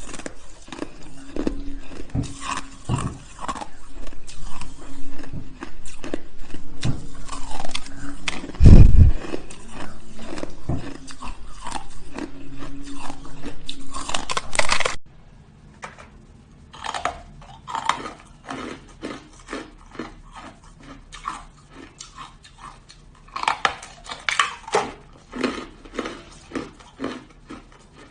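Close-up crunching and chewing of hard shaved ice, dense crisp crunches, with one loud low thump about nine seconds in. Midway the crunching drops abruptly to quieter, sparser bites.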